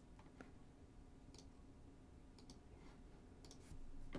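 Faint, scattered clicks of a computer mouse and keyboard being worked, a handful of irregularly spaced sharp ticks over quiet room tone.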